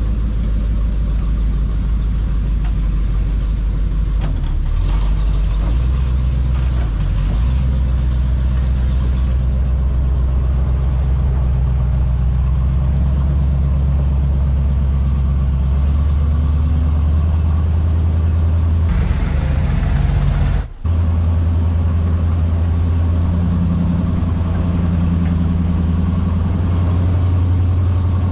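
Off-road wrecker's engine running at low revs while towing a rock buggy on its hook, the pitch shifting up and down now and then. There is a short sudden dropout about twenty seconds in.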